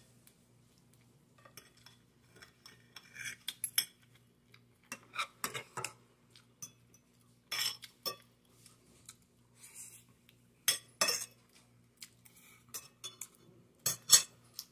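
Metal spoon and fork clinking and scraping against a glass plate while scooping rice and stew, in short scattered bursts. The loudest clinks come about eleven seconds in and again near the end.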